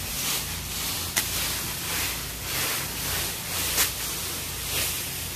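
A rake scraping and dragging through dry fallen leaves in repeated rustling strokes, with two sharp clicks about a second in and near four seconds.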